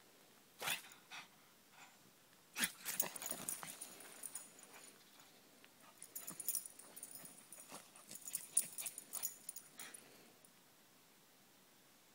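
Pug mix making short, breathy dog sounds in irregular bursts rather than barks as it races about, mixed with scuffing on the dirt path.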